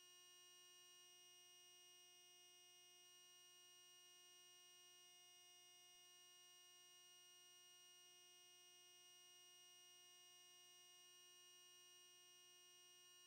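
Near silence: only a faint, steady electronic hum and whine from the recording equipment, unchanging throughout.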